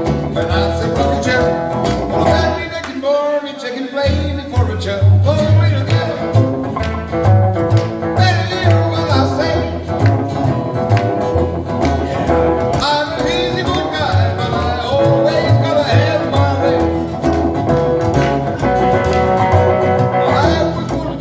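Band music in a country or rockabilly style: guitars over a walking bass line with a steady beat, with some singing. The bass drops out for about a second near the start, then comes back in.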